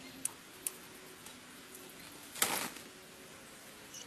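Hand-picking fruit among citrus branches: two sharp clicks in the first second, then a louder brief rustle about two and a half seconds in.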